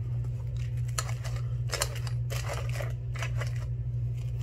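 Plastic wrapping on a lightweight camping cookware set rustling and crinkling in short bursts as the pots are handled, over a steady low hum.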